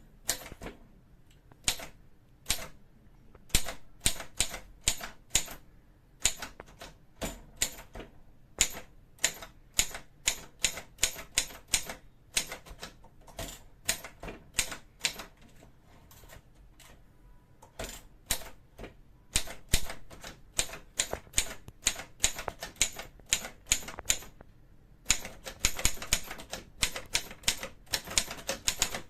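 Voss manual typewriter being typed on: a run of sharp, uneven key strikes with short pauses, coming faster near the end.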